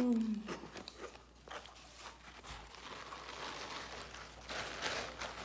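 Crunchy chips being chewed close to the microphone, with scattered crunches. There is a brief falling 'mm' right at the start, and a rustling hiss builds up near the end.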